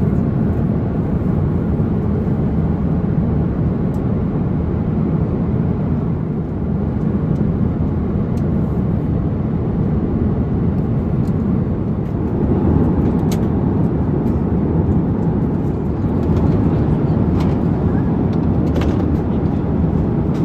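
Steady low roar inside the cabin of an Airbus A350-900. It grows a little fuller about twelve seconds in, with a few faint clicks over it.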